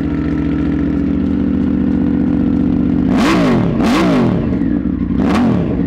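Triumph Tiger 900's three-cylinder engine idling with its muffler removed, only the catalytic converter and resonator left in the exhaust. In the second half the throttle is blipped three times, the pitch rising and falling with each rev.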